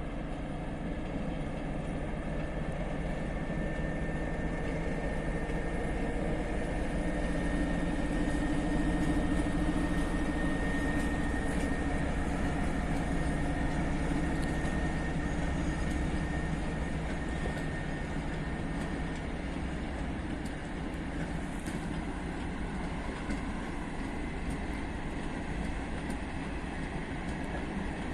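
A train moving along the rails, its running noise growing to loudest about ten seconds in and then easing off, with a thin steady whine above it.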